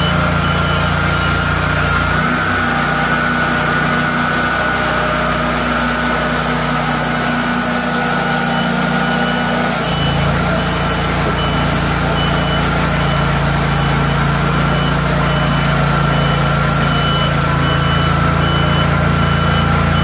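Wood-Mizer LT40 hydraulic portable sawmill running steadily. Its deep engine hum drops away about two seconds in and comes back about eight seconds later, while a short high beep repeats about twice a second for much of the time.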